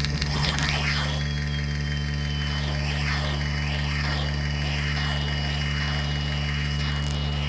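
Live improvised electronics: a steady low electronic drone with a thin high whistling tone that enters about a second in, slides slightly down and then holds, over a rough crackly haze.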